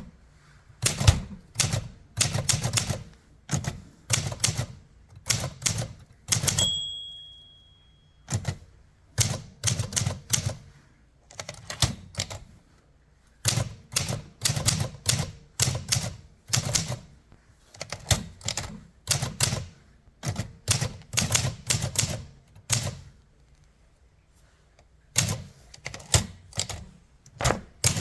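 Olympia SM7 manual portable typewriter being typed on, sharp keystrikes in bursts with short pauses between. Its margin bell rings once about six and a half seconds in, the signal that the end of the line is near.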